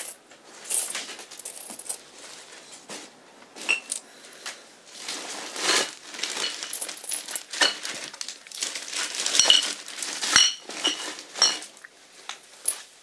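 Irregular clattering and clinking, with bursts of rustling noise in between.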